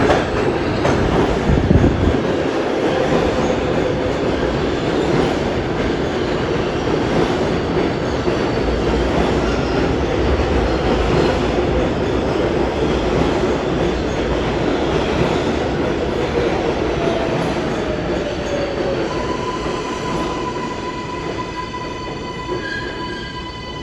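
A New York City subway 7 train running on the rails at the platform: a loud rumble and wheel-on-rail noise that fades slowly. About nineteen seconds in, a steady multi-tone whine comes in.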